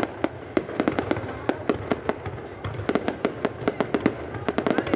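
Fireworks going off in a dense, irregular barrage of sharp bangs and cracks, several a second.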